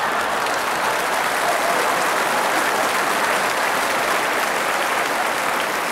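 Studio audience applauding steadily after a joke's punchline, easing off slightly near the end.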